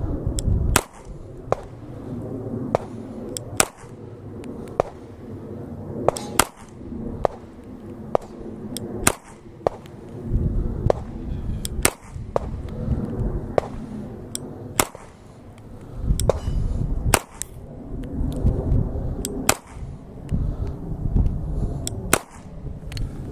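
A P80 (Polymer80) Glock-style pistol firing 22 TCM hand loads with 40-grain cast bullets: a string of single sharp shots, roughly one a second, with wind rumbling on the microphone between them.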